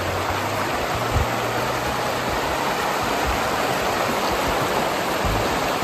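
Steady rushing of a fast-flowing, open creek.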